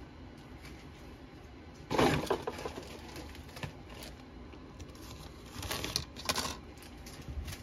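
Plastic sprues of chrome-plated model-kit parts clattering and rattling as they are handled and set down on a cutting mat: one loud burst about two seconds in, smaller clicks, and another clatter near six seconds.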